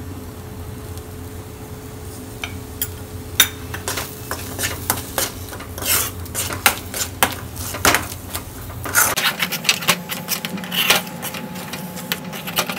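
Metal spoon stirring scrambled eggs in a metal kadai, scraping and clinking against the pan's bottom and sides. The strokes start about two seconds in and come quickly and unevenly, busiest in the second half, over a faint steady hum.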